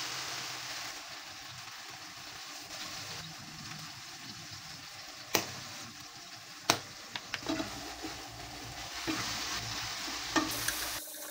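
Cherry tomatoes sizzling in hot oil in a frying pan, stirred with a wooden spatula. About halfway through there are two sharp knocks, followed by a few lighter clicks.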